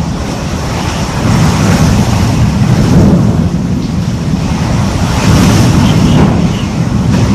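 Hurricane Maria's Category 5 wind blowing in heavy gusts: a loud, steady rushing rumble that swells about a second in and again around five seconds in.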